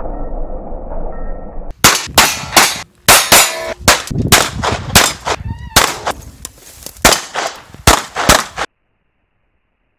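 A handgun firing a rapid, uneven string of more than a dozen shots, after a low muffled hiss at first; the shooting cuts off suddenly about nine seconds in.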